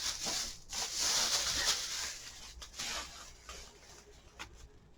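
Liquid being poured into a cup, a hissy splashing that fades out after about two and a half seconds, then a few faint clicks.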